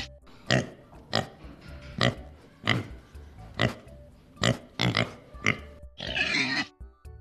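Warthog grunting: a run of short, abrupt grunts, roughly one or two a second, then one longer, harsher grunt near the end.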